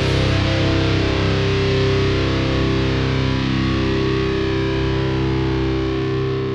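Heavy metal ending: a distorted electric guitar chord held and left ringing after the drums stop, slowly fading near the end.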